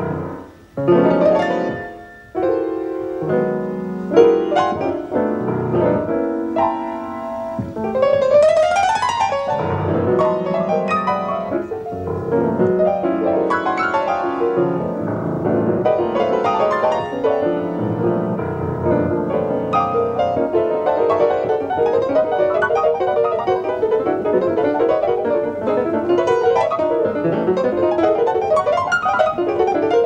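Solo grand piano played in free-jazz style: a few loud, separate chords in the first seconds, a sweeping upward run about eight seconds in, then a dense, unbroken flurry of fast notes and clusters.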